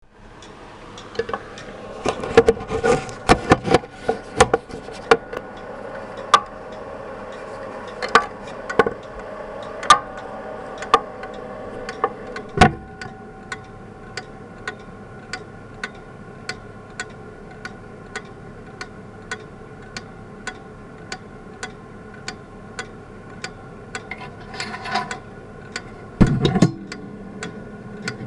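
Mid-1980s teak regulator wall clock heard from inside its case. Over the first half come irregular knocks and rattles against the wood. The escapement then settles into steady ticking, about one and a half ticks a second, and a heavy thump sounds near the end.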